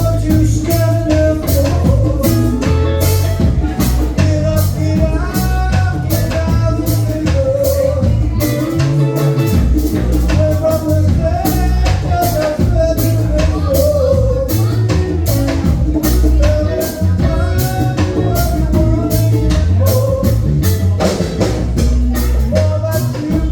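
Live band playing an upbeat song with a steady drum beat and a heavy bass line under a wandering melodic lead.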